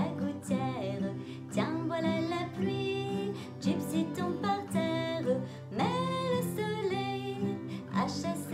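A woman singing a children's song, accompanying herself on a strummed acoustic guitar.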